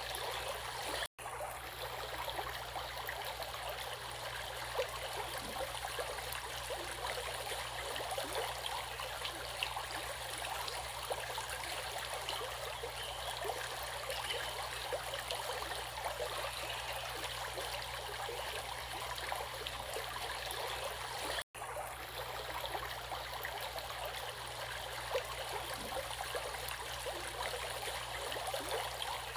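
Stream water running and splashing over rocks, a steady rush with many small splashes. The sound drops out for an instant twice, about a second in and again about 21 seconds in.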